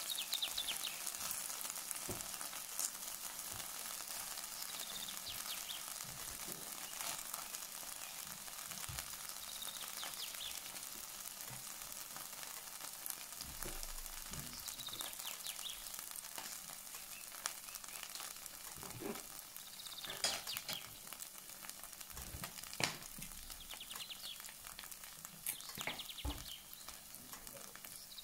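Food sizzling in hot oil in a pan, a steady hiss broken by scattered sharp clicks and knocks, as of a utensil touching the pan.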